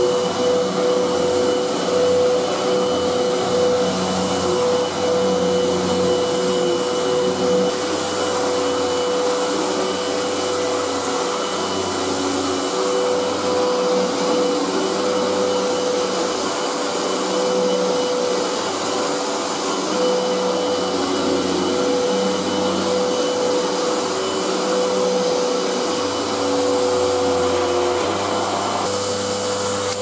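A 1997 Hoover Purepower U3120 upright vacuum cleaner running on carpet as it is pushed around, its motor holding a steady whine. It runs sweetly, with only a little vibration from the brush roll.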